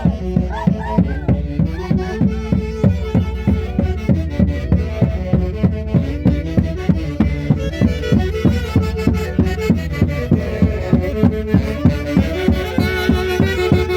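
Andean folk orchestra playing a festive tune, melody instruments over a steady, quick drum beat of about three strokes a second.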